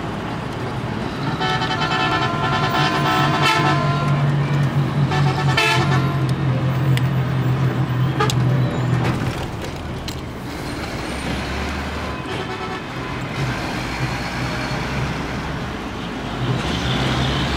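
A bus running across a bridge, heard from inside the cabin: a steady engine hum with road noise, and a vehicle horn sounding for about three seconds near the start. A few sharp rattles come through, and the engine note drops lower about halfway through.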